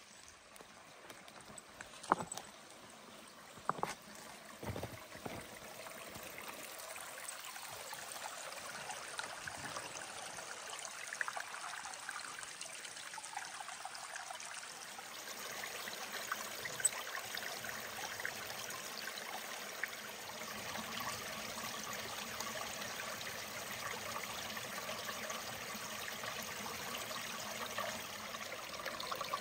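Small rocky forest creek trickling and splashing over stones, growing louder as the camera nears the water. There are a few sharp knocks, like footsteps on rocks, in the first few seconds.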